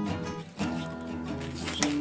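Background music with held notes, and a sharp click near the end.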